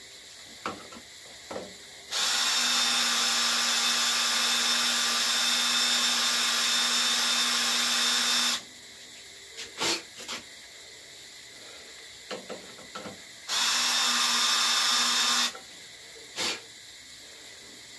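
Cordless drill boring a hole into a metal nozzle fitting clamped in a vise: one long steady run of about six seconds, then a shorter burst of about two seconds near the end, with a few clicks of handling the drill and part in between.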